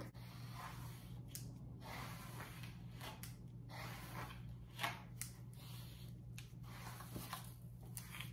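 A hairbrush drawn through long hair: about a dozen faint brushing strokes, unevenly spaced.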